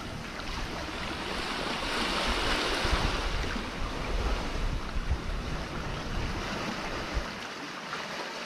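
Sea surf washing against the rocks, swelling about two seconds in and then easing back, with wind buffeting the microphone.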